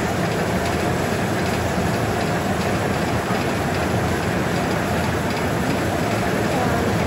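Industrial tobacco cutting machine running, its blades chopping leaf tobacco: a steady, loud mechanical noise with faint rapid ticking over it.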